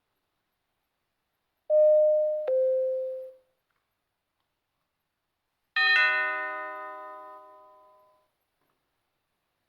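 Doorbell chimes: a two-note ding-dong, a higher tone stepping down to a lower one, about two seconds in, then a single richer chime near the middle that rings and fades away over about two seconds.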